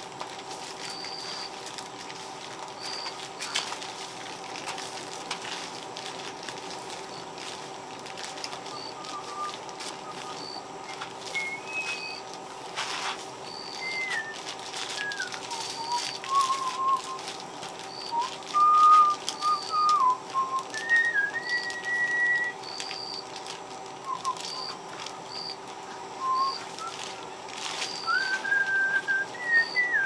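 Soft grass broom swishing over a concrete floor, with a short high bird chirp repeated every second or two. From about a third of the way in, a whistled line of held notes and small pitch glides comes and goes.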